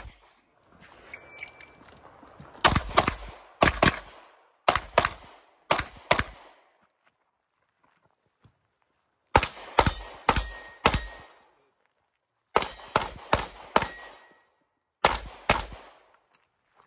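Fast strings of pistol shots from an MPA DS9 compensated Open-division 9mm competition pistol, fired in quick pairs and clusters with gaps of a second to three seconds between strings.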